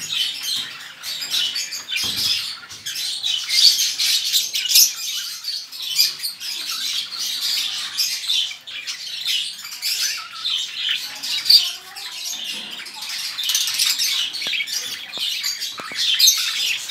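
Many small parrots in a breeding aviary chattering and squawking together: a dense, continuous stream of overlapping high-pitched calls with no pause.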